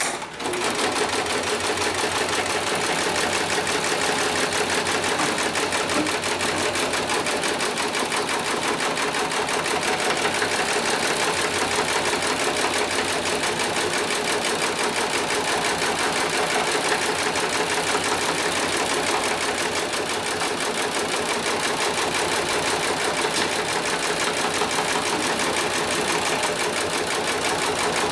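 HIGHTEX 7273CNC/X heavy-duty programmable pattern sewing machine running at high speed, its needle stitching rapidly and steadily through polyester strap webbing held in a clamp frame. It starts about half a second in and keeps an even, fast rhythm throughout.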